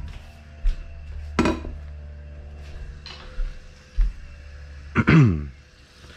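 Kitchen utensils and cookware clinking and knocking as they are handled. A few separate sharp clinks and knocks come first, then a louder clatter about five seconds in, over a low steady hum.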